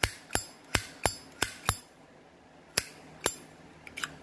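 Zippo lighter's hinged metal lid flicked open and snapped shut repeatedly: sharp metallic clinks, six in quick succession over the first two seconds, then two more about a second later and a faint one near the end.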